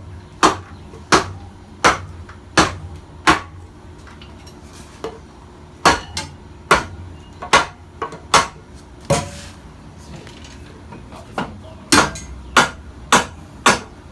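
Hammer blows on metal, in three runs of about five sharp strikes each, with a short pause between runs. They are driving the generator's end bearing, which is walking its way out of its housing.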